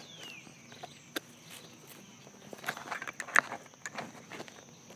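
Scattered sharp clicks and scuffs of handling a nylon holster's clip, thickest about halfway through. A short falling whistle like a bird call comes at the very start, over a faint steady high-pitched hiss.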